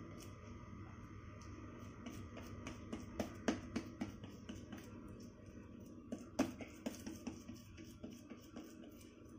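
Fingers patting and pressing soft pumpkin-and-jaggery dough flat on a wet cotton cloth: irregular soft taps, the loudest about three and a half and six and a half seconds in, over a low steady hum.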